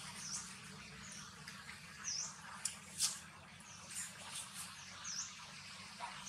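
Small bird giving short, high chirps that dip and rise, about five over a few seconds, with a few light crackles of dry leaves or chewing near the middle.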